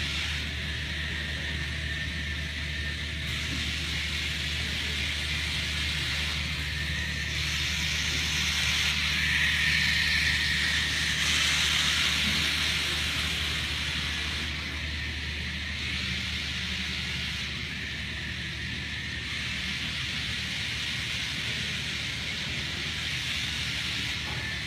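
Small DC gear motors of a homemade Arduino car running as it drives around, a steady hissy whir that grows loudest about ten seconds in as the car comes close, over a steady low hum.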